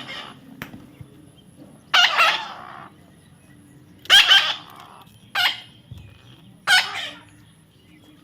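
Young parrot calling: four short, harsh squawks spaced a second or two apart, the second the loudest.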